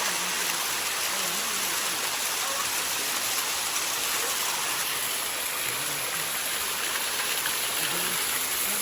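Steady rush of water running down the limestone cascades of Bua Tong, the Sticky Waterfall, with faint voices underneath.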